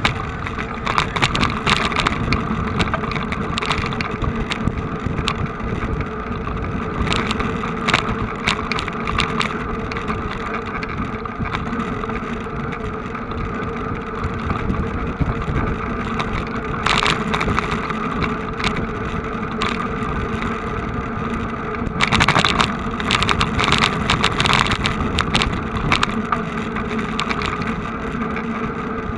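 A vehicle engine running steadily at an unchanging pitch, with short crackly noise bursts now and then and a cluster of them near the end.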